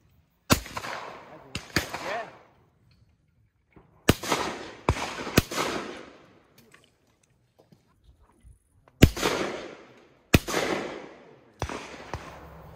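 Shotgun shots at a sporting clays stand, fired as three pairs a little over a second apart, each shot with a long echoing tail, with a few fainter cracks in between.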